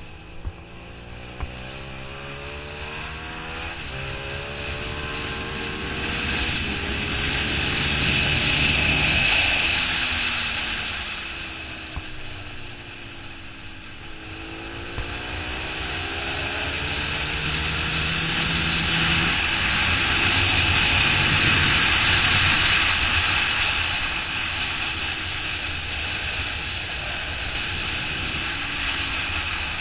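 2008 Suzuki SV650's V-twin engine at racing speed, the revs climbing and dropping back through gear changes, falling away around twelve to fourteen seconds in as the bike slows for a corner, then climbing hard again. Heavy wind rush over the onboard camera swells and fades with road speed.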